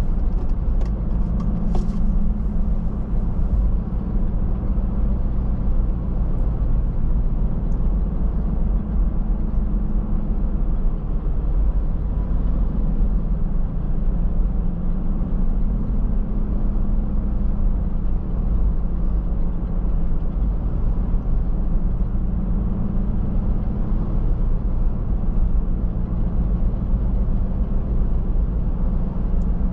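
A car driving steadily along a road: a low engine drone and tyre rumble, with a few faint clicks about one to two seconds in.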